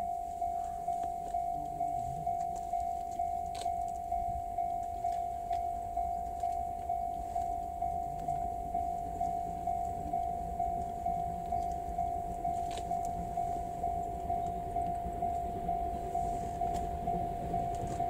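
Japanese railway level-crossing warning bell ringing steadily, one tone struck about twice a second: the crossing is closed for an approaching train.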